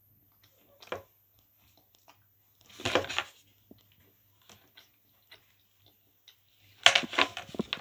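Someone biting and chewing a piece of dark chocolate: short, crackly bursts about one, three and seven seconds in, the last the loudest.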